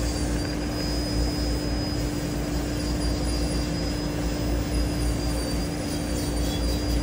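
Steady machine drone: a constant low hum with a steady mid-pitched tone and a thin high whine.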